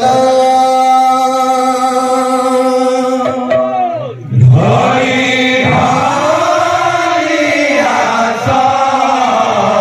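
Male kirtan singers chanting a devotional song. A long, steady held note lasts about three seconds, then the pitch slides down and a wavering sung line rises and falls.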